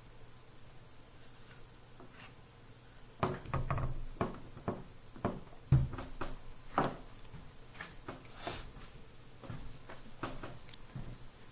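Scattered light knocks and clicks of objects being handled and set down, the loudest a little past the middle, over a faint steady background.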